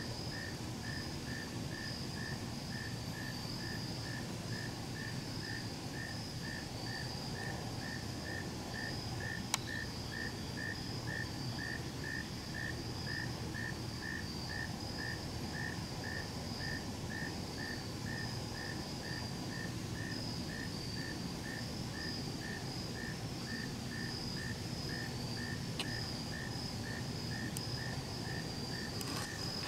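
Insect chorus: one insect chirps steadily about twice a second under a continuous higher trill. A single sharp click sounds about ten seconds in.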